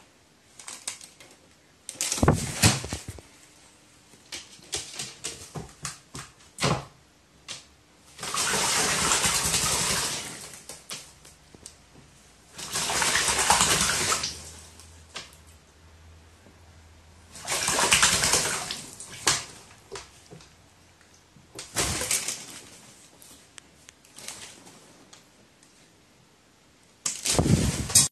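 A crow bathing, splashing in a shallow bath of water. The splashes come in several bursts of a second or two, with small splashes and taps in between.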